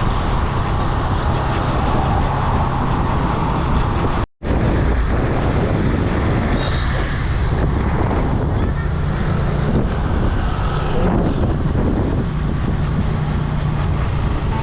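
Steady rumble and road noise of a moving vehicle with wind buffeting the microphone; the sound drops out for a moment about four seconds in, then carries on the same.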